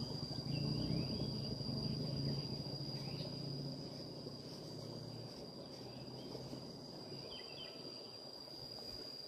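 Insects shrilling in one steady high-pitched tone, with a low rumble underneath that fades after the first few seconds and a few faint short chirps.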